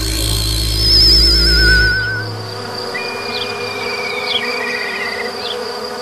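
Insect-like buzzing and chirping: warbling high tones with short falling chirps, over a low rumble that stops about two seconds in.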